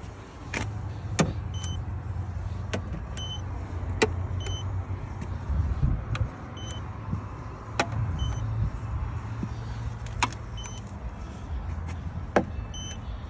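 Short high electronic beeps every second or two, each paired with a light tap, typical of a paint-thickness gauge taking readings on a car's body panels. Under them runs the low steady hum of the car idling.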